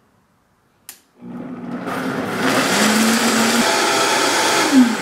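Vitamix blender switched on with a click about a second in, then running and getting louder as it is ramped up, blending soaked pumpkin seeds and water. Near the end its pitch falls twice as it slows.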